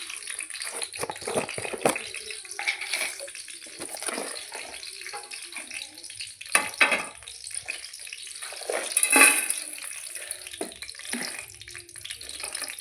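Ghee heating in a pan on a gas stove, giving a steady faint high hiss, amid irregular knocks and clatters of kitchen utensils and containers, the loudest around the middle.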